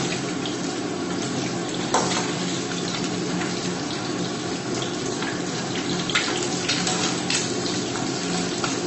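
Whole boiled eggs sizzling steadily as they fry in hot oil in an iron kadhai. A few short clicks come as a metal slotted spoon and tongs knock against the pan while the eggs are turned.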